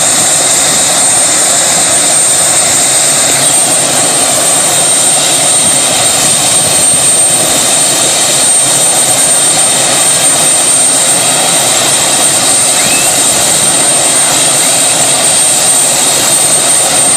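Helicopter running: a loud, steady rush of engine and rotor noise with a constant high whine.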